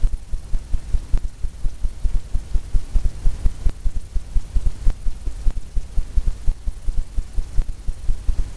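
A low rumble that throbs irregularly several times a second, with a few faint taps and scrapes of a palette knife laying white oil paint onto canvas.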